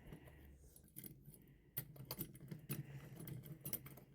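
Faint, irregular clicks and light clinks of small microscope parts being handled and fitted together.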